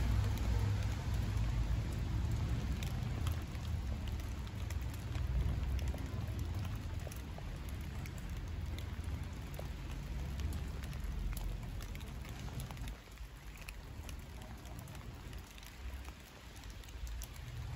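Steady light rain with scattered drops ticking close by, over a low rumble that dies down for a few seconds near the end.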